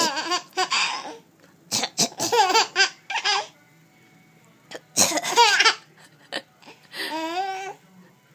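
High-pitched, hearty laughter in about five bursts with short pauses between them.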